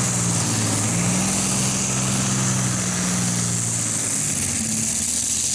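Multi-engine Light Modified pulling tractor running at full power under load as it drags the weight sled down the track: a loud, steady engine drone with a strong hiss over it.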